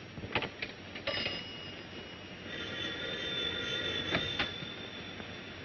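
A few sharp clicks, then an old telephone bell ringing, with a louder ring lasting a couple of seconds about halfway through before it stops.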